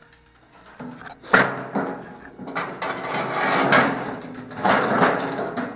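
Loud, irregular rustling and knocking, starting with a sharp knock about a second in and going on as dense scraping and crunching.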